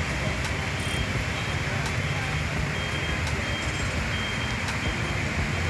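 Steady road traffic on a waterlogged road junction: vehicle engines running with a low rumble and a constant hiss, with a few faint short high beeps in the middle.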